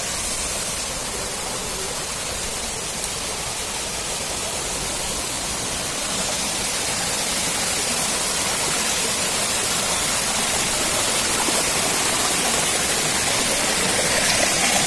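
Small hillside spring stream running over rocks: a steady rush of water that grows a little louder toward the end.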